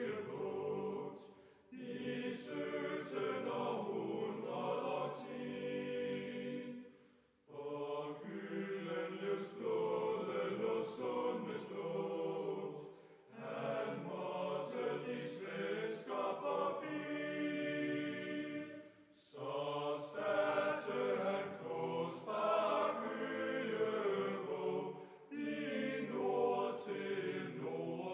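Choir singing a slow chant: held phrases of about six seconds, each followed by a short pause.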